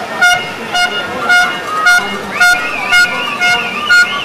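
A spectator's horn tooting in a steady rhythm, about two short blasts a second, urging on a paddler in the race. From about halfway a high warbling whistle joins in.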